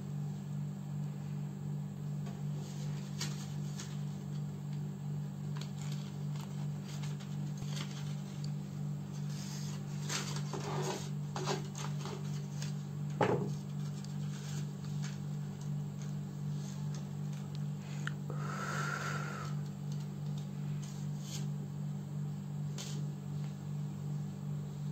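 Steady low hum with faint crackles and clicks of paper being handled and pressed, and a single sharp knock about halfway through.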